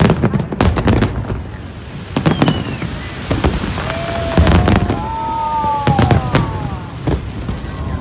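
Aerial fireworks bursting in a rapid series of sharp bangs with deep rumbling tails. In the middle, several whistling shells glide down in pitch among the explosions.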